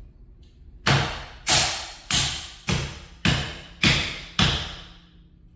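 Sledgehammer striking a bent chrome Forgiato wheel seven times at a steady pace, each blow a sharp metallic hit with a short ring, knocking out a pothole dent in the rim.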